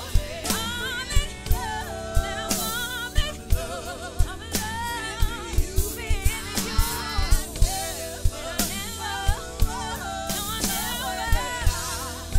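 Mapex PRO-M drum kit played along to a soul ballad recording, with bass drum and snare hits in a slow, steady groove. A woman's voice sings long, bending runs over sustained backing chords.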